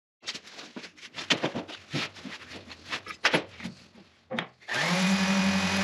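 Knocks and clatter as a cast-iron jointer fence part is picked up and handled, then near the end an electric random orbit sander switches on and runs steadily.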